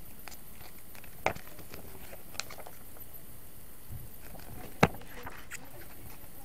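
Handling noise from a CD booklet and its case being flipped through: a scatter of light paper and plastic clicks and taps, with two sharp louder knocks, about a second in and near five seconds.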